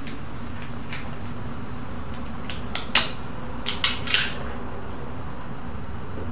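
Walnut shells cracking and clicking: a few sharp cracks, the loudest about three seconds in and a quick cluster of three near four seconds, over a steady low hum.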